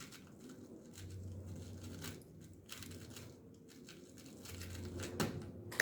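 A 3x3 speedcube being turned fast during a speed solve: a faint, quick run of irregular plastic clicks and clatter.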